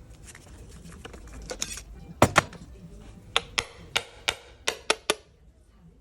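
Metal parts of a GM power steering pump and hand tools clicking and clinking during disassembly: a string of sharp, separate knocks, the loudest pair a little past two seconds in.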